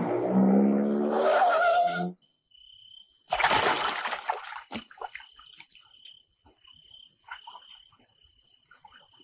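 A car engine revs as it pulls away, rising slightly in pitch, and cuts off abruptly about two seconds in. About a second later comes a loud splash of something plunging into pool water, then light water sloshing and a faint, high, steady trill.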